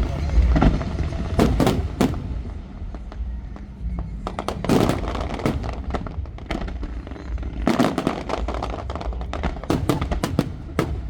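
Aerial fireworks bursting overhead: sharp bangs and crackles in clusters, a dense run about a second and a half in and again from about eight seconds on, over a steady low rumble.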